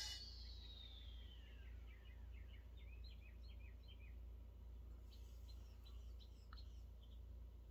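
Near silence: steady low hum of room tone, with a faint falling whine fading out over the first two seconds and a scatter of faint, short high chirps after it.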